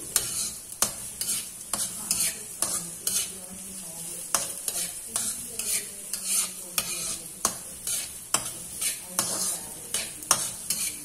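Diced vegetables stir-frying in hot oil in a wok: a steady sizzle, with a spatula scraping and clicking against the pan about twice a second as they are sautéed.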